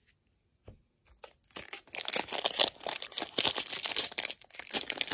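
Foil wrapper of a jumbo baseball card pack being torn open and crinkled by hand, starting about a second and a half in.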